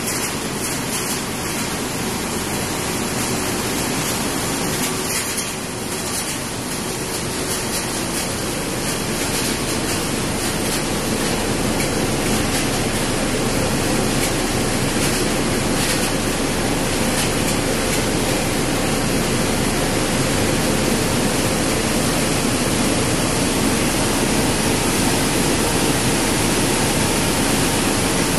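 Steady, even rushing noise of industrial machinery running, with no distinct rhythm, growing slightly louder after about seven seconds.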